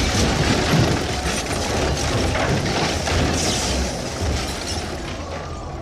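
A bomb blast in a film scene: a loud rumbling noise full of crackling, clattering debris that slowly dies down toward the end.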